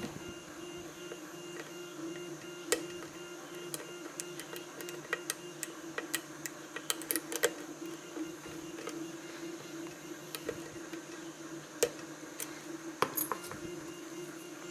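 Small sharp metallic clicks and ticks of a lock pick working the pins of a Corbin Russwin pin-tumbler challenge lock under tension, scattered, with a quick run of them in the middle. A steady low hum sits underneath.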